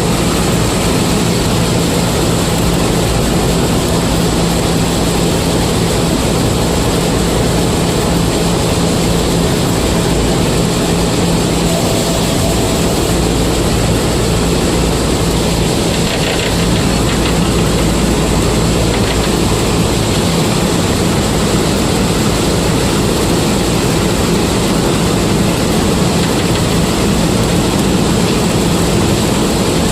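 Combine harvester engine running steadily under load, a constant heavy drone with a steady hum.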